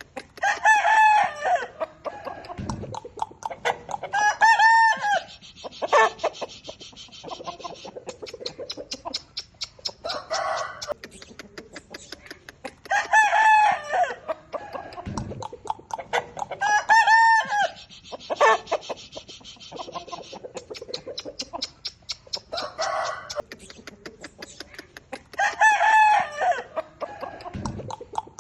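Aseel roosters crowing in loud calls a few seconds apart, with quieter clucking between them. The same sequence of crows and clucks repeats about every twelve seconds.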